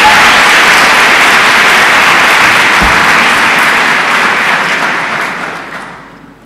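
Audience applauding steadily, then dying away over the last second or so.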